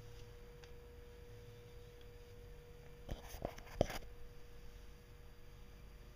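A faint steady hum, with a short cluster of knocks and clicks about three to four seconds in, from hoses and parts being handled around the engine.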